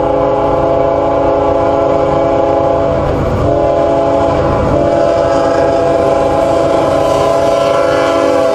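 Diesel freight locomotive's multi-chime air horn blowing long blasts for the grade crossing, with brief breaks about three and four and a half seconds in, over the low rumble of the approaching train. The lead locomotive reaches the crossing near the end.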